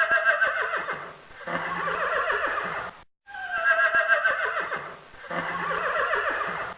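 Horse whinny sound effect, played twice in a row: each call starts as a high cry that falls in pitch, then breaks into a rapid, shaking tail.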